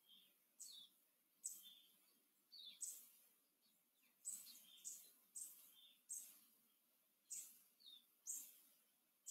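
Faint, short high-pitched bird chirps, repeating about once or twice a second.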